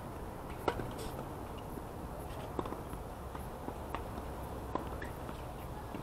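Tennis serve: the racket strikes the ball with a sharp pop about a second in, followed by a handful of fainter knocks of ball on racket and court as the point is played, over a steady low background rumble.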